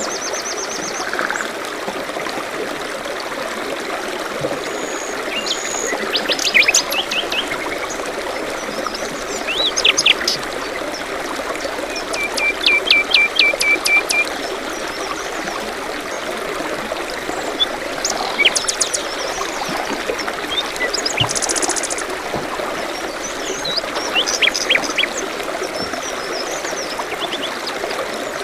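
Small songbirds chirping and calling in short rapid series, one run of about a dozen quick notes lasting a couple of seconds, over the steady trickle of a forest stream.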